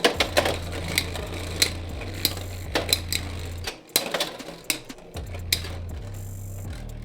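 Two Beyblade X spinning tops, Wizard Rod 1-60 Rush against another Wizard Rod, battling in a plastic stadium. They make rapid, irregular clicks and clacks as they strike each other and the walls.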